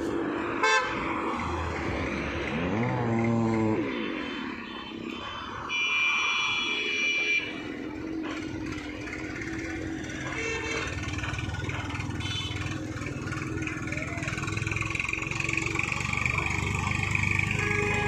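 Night road traffic: a steady rumble of passing vehicles with vehicle horns honking, one short blast about a second in and a longer one around six to seven seconds in. A passing engine rises and falls in pitch about three seconds in.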